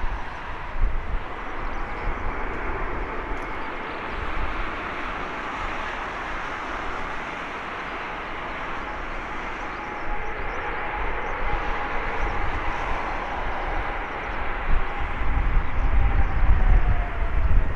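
Airbus A220-300's Pratt & Whitney PW1500G turbofans running as the airliner rolls out after landing: a steady jet rush with a thin whine that slides lower near the end. Wind buffets the microphone with low rumbles at the start and again near the end.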